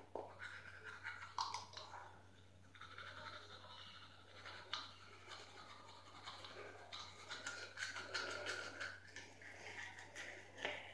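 A toothbrush scrubbing back and forth over teeth in an irregular, rapid rhythm, with a faint steady low hum underneath.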